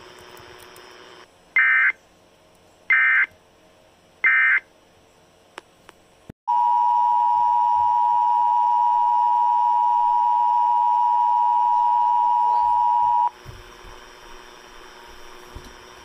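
Three short, loud bursts of Emergency Alert System SAME data (the end-of-message code closing a severe thunderstorm warning) over faint radio hiss. Then, after a click, the EAS two-tone attention signal (two close tones just under 1 kHz) sounds steadily for about seven seconds and stops, announcing the next warning.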